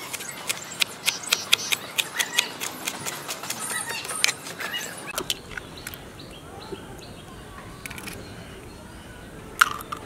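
Kitchen knife chopping green herbs on a plastic cutting board: quick, even chops, about four a second, for roughly the first half. After that it goes quieter, with one sharp click near the end.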